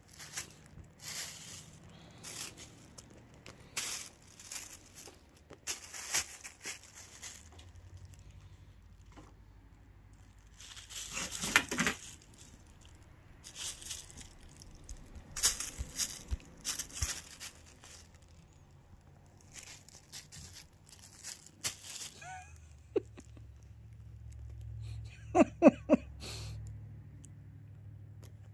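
Thin plastic shopping bag crinkling and rustling in repeated short bursts as a kitten pounces on it and claws at it.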